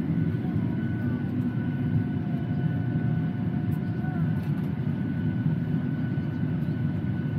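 Steady low rush of an airliner cabin's air-conditioning during boarding, with a thin, steady high whine running over it.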